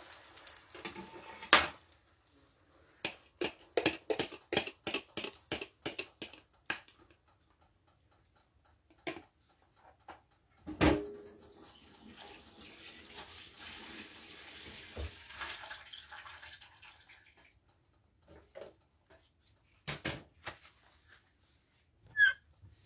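Beaten egg poured into hot oil in a frying pan: a run of quick clicks, about three a second, as a fork knocks the egg out of the bowl, then a thump about eleven seconds in, followed by a soft sizzle of the egg frying for several seconds.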